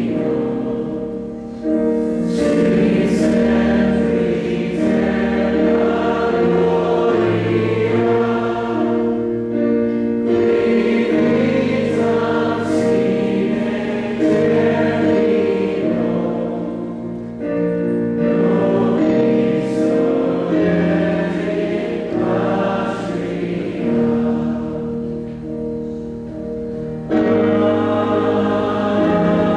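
Choir singing a slow sacred hymn, with long held notes.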